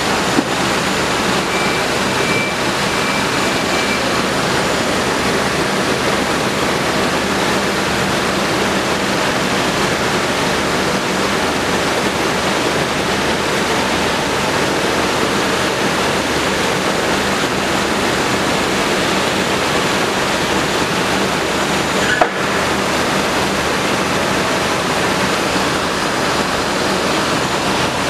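Steady rushing noise of a running bottling-line case conveyor and a large pedestal fan blowing nearby, with a low steady hum underneath. A single sharp click late on.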